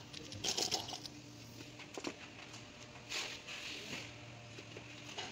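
Gear oil trickling and dripping out of the 2002 Dodge Ram 1500's rear differential as its cover is loosened, with a few short, light handling noises from the cover.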